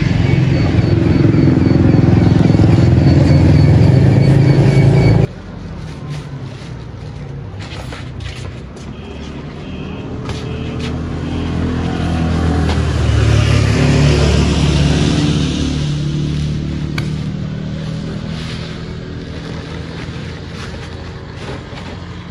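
Road traffic: a motor vehicle's engine running close by, cutting off abruptly about five seconds in, then a vehicle passing on the street, growing louder and fading away.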